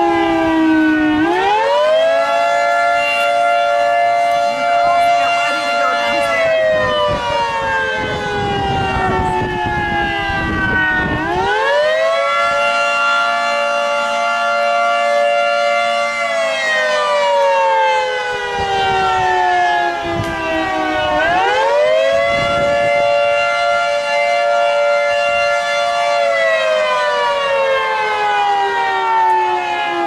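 Outdoor tornado warning siren wailing, sounding a tornado warning. Its pitch climbs quickly, holds for about five seconds, then slides slowly down, three times about ten seconds apart.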